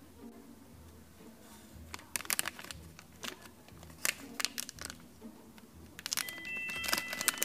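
A plastic foil candy packet crinkling and rustling in the hands as it is held and turned over, in irregular bursts of crackle. Light chime-like music with bell tones comes in about six seconds in.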